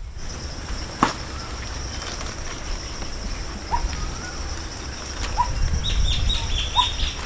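A steady high-pitched insect drone from the trees, with a few short rising bird chirps and a quick run of high bird notes near the end. There is a sharp click about a second in and a low rumble underneath.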